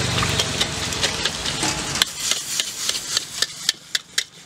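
Metal spatula scraping and clacking against a wok, about four strikes a second, as char koay teow noodles and duck egg are stir-fried, with sizzling. A low hum cuts off about two seconds in and the sizzle falls quieter, leaving the spatula strikes.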